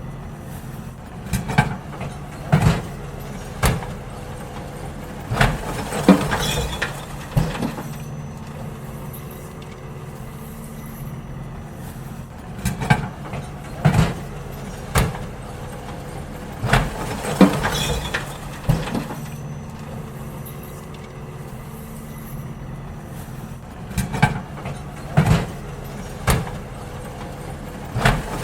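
A garbage truck's diesel engine runs steadily while bins are emptied, giving clusters of loud bangs and clatter: a few hard knocks about a second apart, with a new group every five or six seconds.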